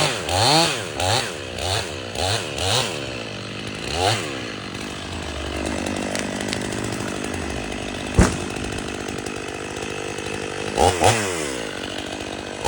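Stihl MS 500i two-stroke chainsaw revved up and down in quick blips, about two a second for the first few seconds, then running lower and steadier. A single sharp knock comes about 8 seconds in, and two more quick revs come near the end.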